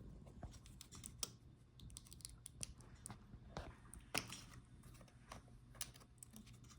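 Faint, scattered small clicks and light taps of parts being handled inside an opened laptop, most likely the fan cable connector being unplugged and the Wi-Fi antenna cables moved aside. The sharpest click comes about four seconds in, over a low steady hum.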